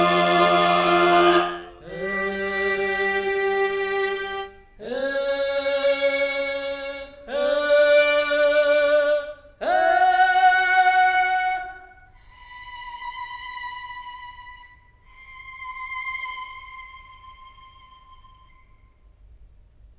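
Sampled instrument from the Chronicles Bukhu Kontakt library playing single sustained notes one after another, each about two seconds long, stepping upward in pitch. The last two notes are higher and quieter.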